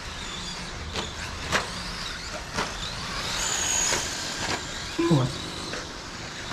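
Radio-controlled 1/10-scale 2wd racing trucks running on a dirt track: high electric-motor whines that rise and fall as they accelerate and brake, with sharp clacks of landings and hits scattered through. A brief low tone falls in pitch about five seconds in.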